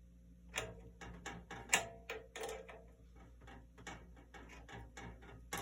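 A run of irregular hard clicks and clinks, about two or three a second, from hands working on the metal parts of a bandsaw as its new blade is set and checked. The loudest clicks come about two seconds in and again near the end.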